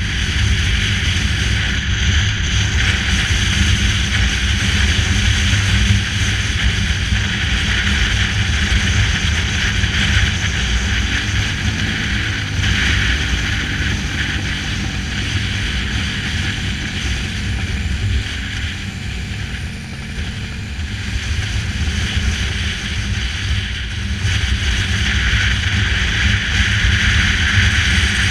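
A motorcycle engine running at road speed under a steady rush of wind on the microphone. The wind rush eases a little about twenty seconds in and grows again near the end.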